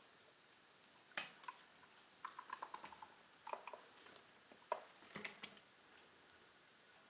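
Don Sphynx kitten's claws scratching and clicking on a sisal and plush cat tree as it climbs: a scatter of short scratches and a quick run of small clicks, with quiet stretches between.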